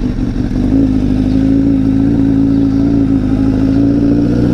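Honda CBR1000RR's inline-four engine running steadily at an even pitch.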